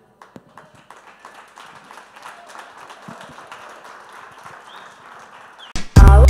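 Audience applauding, fairly faint and steady, as many scattered claps. About six seconds in, loud music with a strong beat cuts in suddenly.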